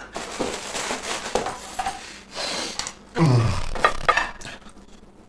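Kitchen clatter of dishes, pans and utensils being handled: a run of irregular knocks and scrapes, loudest about three seconds in, then dying away.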